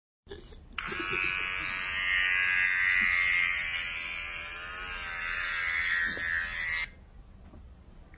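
Buzz of an electric hair clipper played from a phone's clipper app through the phone's speaker. It comes in about a second in, runs steadily, and cuts off suddenly near the end.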